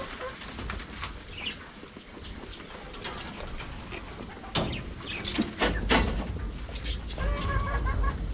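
Farm animals calling: sheep bleating with birds chirping, in short scattered calls. A low rumble comes in about five and a half seconds in.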